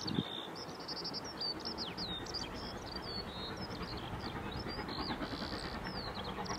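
Songbirds chirping repeatedly over the faint, steady low rumble of a distant steam locomotive approaching along the line.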